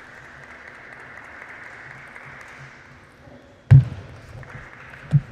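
Table tennis play: a faint steady hum from the hall, then a loud sharp knock about three and a half seconds in as the point starts, lighter clicks of the ball off racket and table, and another sharp knock near the end.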